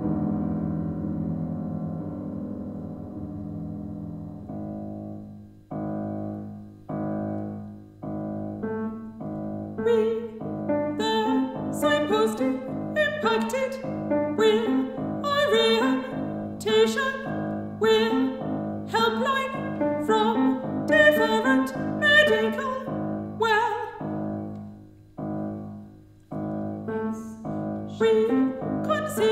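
Live mezzo-soprano and piano art song. A held piano chord fades away, then repeated piano chords build and grow busier, with an operatic female voice singing over them.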